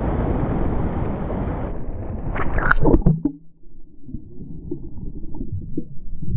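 Shallow ocean surf washing around the shins, then a splash about two and a half seconds in as the camera goes under. After that the water is heard from below the surface as a dull, muffled rumble.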